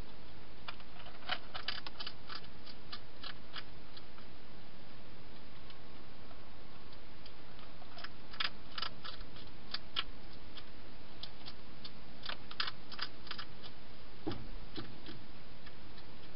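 A wild hedgehog eating, its chewing heard as quick irregular clicks in bursts, with a dull knock about 14 seconds in, over a steady hiss.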